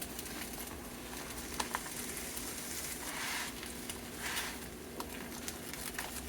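Omelette cooking quietly in a hot non-stick pan: a faint sizzle with a few light clicks of a utensil against the pan and two short soft hisses a few seconds in, over a steady low hum.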